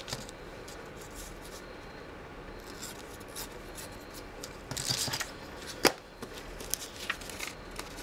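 A book page being torn along the edge of a ruler in short rasping pulls, with paper rustling and small ticks from the ruler. The biggest rip comes about five seconds in, followed by one sharp tick.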